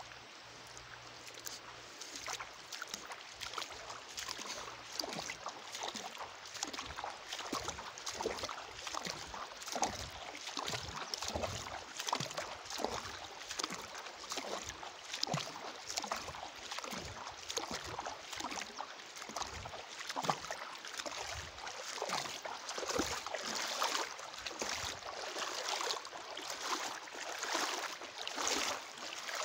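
Shallow river water sloshing and splashing close to the microphone in an irregular run of small splashes, growing a little louder over time.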